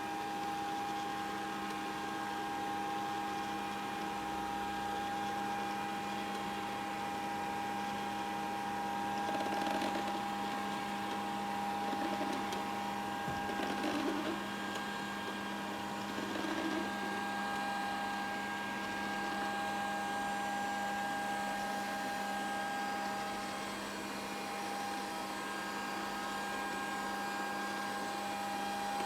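Grundig VCR 2131 robot vacuum cleaner running, a steady motor hum with a higher whine over it. A few brief louder swells come between about ten and seventeen seconds in.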